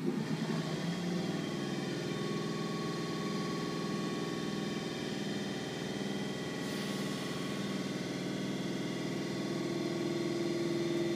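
Electric RET metro train running, heard from inside the car: a steady hum and whine with several held tones that sets in suddenly at the start.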